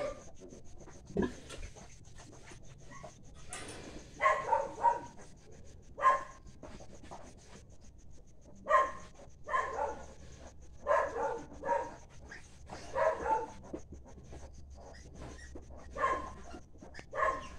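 Newborn piglets squealing in short, high cries, repeating every one to two seconds.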